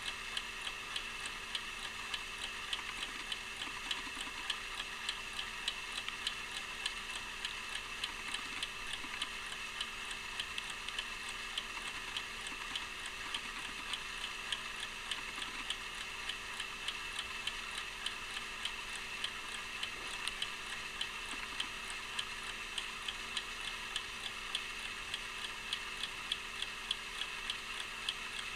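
Antique officer's alarm clock running, its balance-wheel escapement with visible hairspring ticking steadily and evenly.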